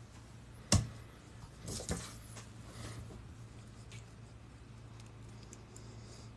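A sharp click about a second in, then a brief patch of small clicks and rustling as loose wire jump rings, chainmail and pliers are handled, with a few faint ticks after. A low steady hum runs underneath.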